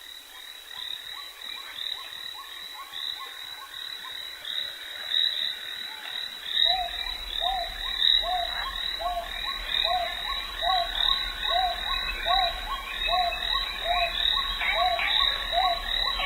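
A chorus of frogs calling, with many overlapping high calls and, from about halfway through, a lower call repeating steadily about three times every two seconds. A low rumble comes in at about the same point.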